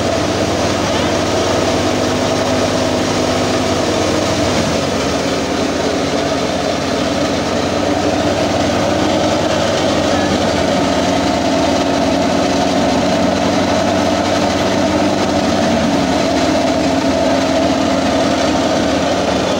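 Tractor-driven wheat thresher running steadily at working speed, a continuous loud mechanical drone of its drum and the tractor engine driving it.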